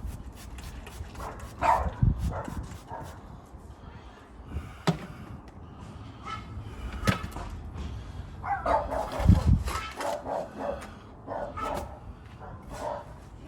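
Short animal calls, several in quick runs, mixed with a few sharp knocks.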